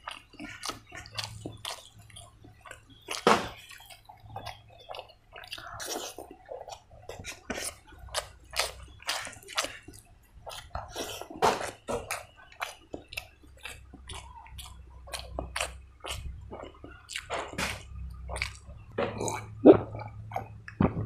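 Close-up wet chewing and lip smacking of rice and pork curry eaten by hand, with fingers squishing and mixing rice on a steel plate, in many short irregular smacks. Near the end he drinks from a glass bottle.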